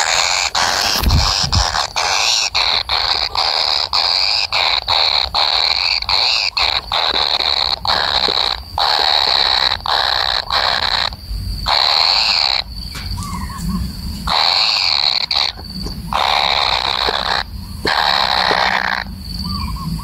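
Kingfisher chick making harsh, rasping calls while it waits for its parent: rapid short calls at first, then longer calls of about a second each with short gaps between. A low bump sounds about a second in.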